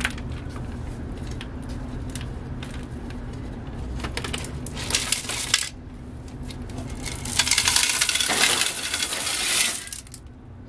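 Small decorative rocks clicking and clattering against a glass planter and each other as they are handled and tipped out onto a pile, with scattered clicks at first and a longer, louder rattling pour in the second half.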